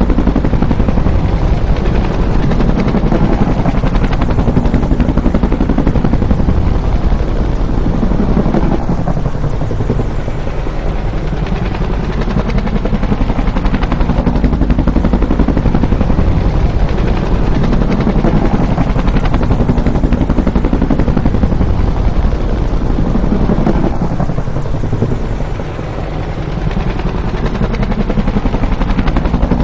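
Bell UH-1 Huey helicopter's rotor beating with a fast, steady chop. Its loudness dips briefly twice, about fifteen seconds apart, with a rise and fall in pitch.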